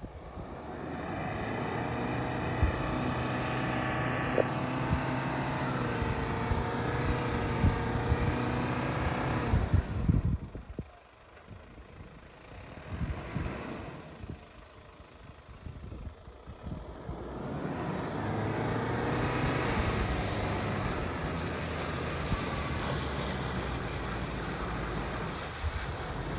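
Toyota Land Cruiser Prado 120's 1KZ-TE 3.0-litre turbo-diesel engine working hard as the 4x4 pushes through deep mud and water, revving up and holding, easing off for several seconds about ten seconds in, then pulling hard again.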